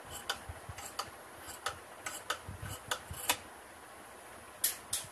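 Tailor's shears snipping through cotton cloth along a curved cutting line, a run of irregular sharp clicks. After a short pause, two louder snips come near the end.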